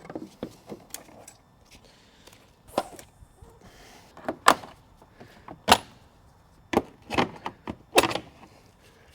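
Irregular sharp clunks and snaps of plastic intake parts (air box and intake boot) being pried and pulled off the engine, about seven knocks spread unevenly, the loudest a little over halfway through.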